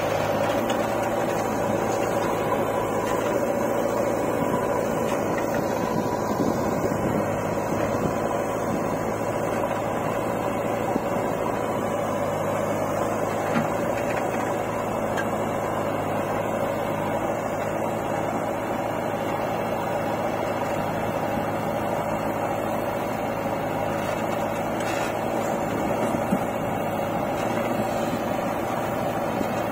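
Steady diesel engine drone of a JCB 3DX backhoe loader working its rear digging arm to load soil into a tractor trolley, with a couple of faint knocks midway and near the end.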